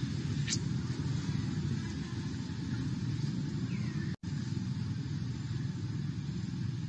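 Steady low rumble, like wind on the microphone or distant traffic, with a few faint, short, high chirps over it; the sound cuts out briefly about four seconds in.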